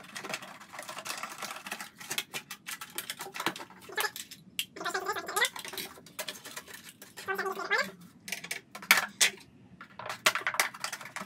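Plastic milk bottle being cut with a knife on a wooden chopping board: irregular crackles, clicks and taps of the plastic, with two short squeaks that rise in pitch, about five and seven and a half seconds in.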